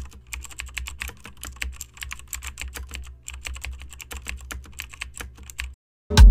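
Rapid, irregular computer-keyboard typing clicks over a steady low hum: a typing sound effect for on-screen text. The typing stops near the end, and after a brief gap loud music starts.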